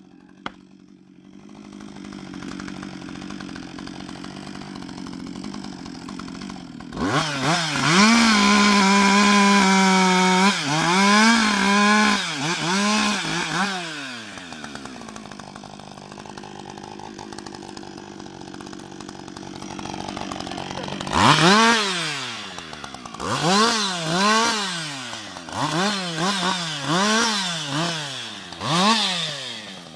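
Husqvarna 560 XP two-stroke chainsaw idling, then opened up to full throttle and held for about three seconds, dipping and rising a few times before dropping back to idle. Near the end it is revved in repeated quick surges, about one every second and a half.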